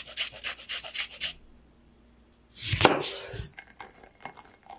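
Lemon rind rasped on a flat metal zester-grater in quick strokes for about a second, stopping suddenly. After a short pause comes a louder thump, then faint scattered clicks as a lemon half is pressed on a stainless steel citrus reamer.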